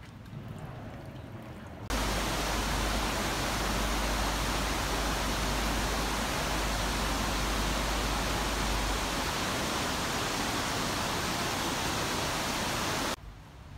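A thin trickle of water from a bamboo spout into a stone basin, then, cutting in suddenly about two seconds in, the loud steady rush of a mountain river's white water, with a low rumble underneath for much of it. The rush cuts off abruptly shortly before the end.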